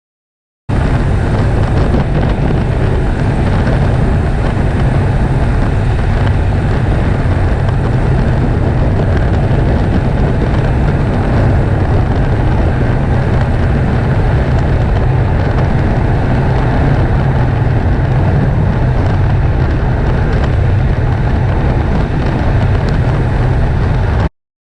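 Steady low road and drivetrain rumble from a Lexus NX350h on the move, with the exhaust heat shield rattling underneath. It starts abruptly about a second in and cuts off just before the end.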